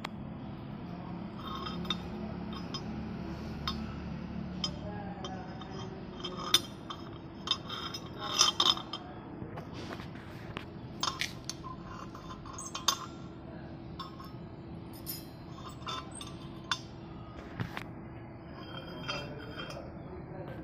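Steel chain links and a steel bending tool clinking and knocking on a steel jig plate as the links are formed: irregular sharp metal clinks that ring briefly, bunched together about eight to nine seconds in, over a steady low hum.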